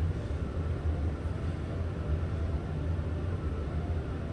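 Steady low background rumble with a faint hiss, with no distinct event.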